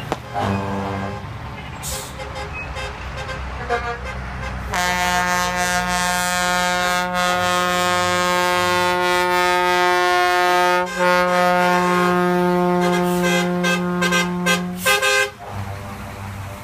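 Bus air horn sounding: a short blast about half a second in, then one long steady blast of about ten seconds, followed by a run of short toots near the end.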